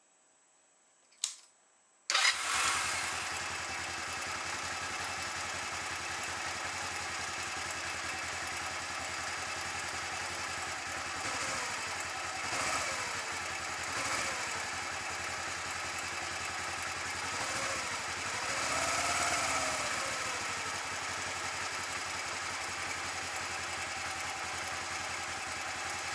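Honda CB125T's 124 cc parallel-twin engine starting about two seconds in, then idling steadily with a few slight rises in revs.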